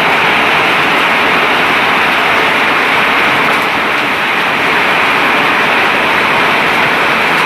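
Hailstorm: a loud, steady, unbroken noise of hail and heavy rain coming down.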